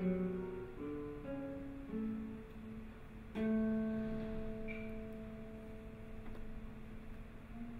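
Two classical guitars playing a sparse contemporary duo passage of plucked single notes. About three and a half seconds in, a note is struck sharply and left to ring for about four seconds, slowly fading.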